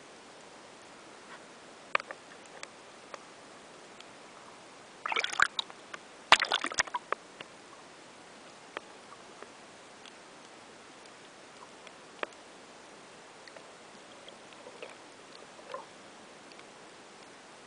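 Water heard underwater: a faint steady hiss with scattered sharp clicks, and two brief bursts of sloshing water, about five and six and a half seconds in.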